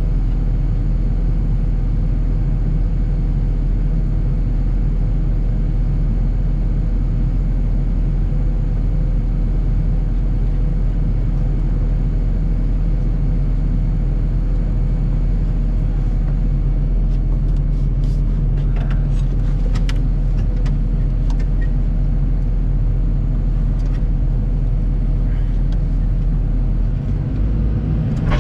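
John Deere 250G excavator's diesel engine running steadily, with a string of sharp clicks and knocks over the second half. The engine note shifts just before the end.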